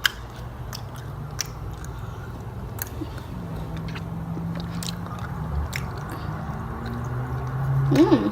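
Chewing a sticky homemade edible slime made with powdered sugar, with scattered small wet mouth clicks and smacks. A brief hummed vocal sound comes near the end.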